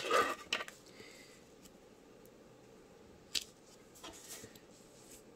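Shrink-wrap and tape packaging around a rolled canvas being handled: a sharp snap, about half a second of crinkling plastic, then a few isolated clicks and a soft rustle.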